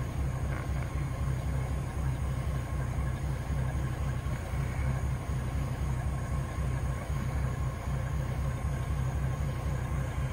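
Engine of a 1977 Chevy K10 pickup running steadily with a deep, even low rumble as the truck drives slowly over a grassy field.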